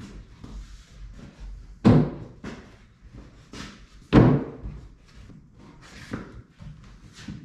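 Wooden cabinet bases being shifted and butted together: two loud hollow knocks about two seconds apart, with lighter knocks and bumps between.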